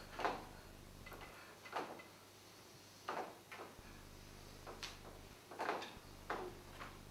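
A pregnant woman's stifled gasps and muffled groans as she bites her fist to hold back cries of labour pain, about eight short sounds at irregular intervals.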